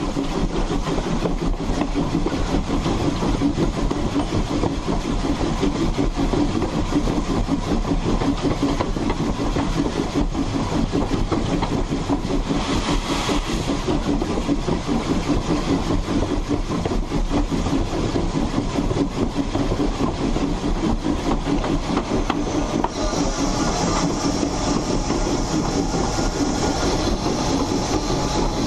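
Ex-Hammond Lumber 2-8-2 saddle-tank steam locomotive No. 17 heard right beside its driving wheels while under way: a steady, dense clatter of wheels and running gear on the rails, growing brighter and more hissy near the end.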